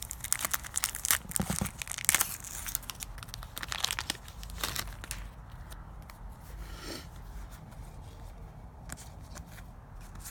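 Plastic wrapper of a baseball card pack crinkling and being torn open, a dense run of crackles for about five seconds that turns sparser and fainter after that.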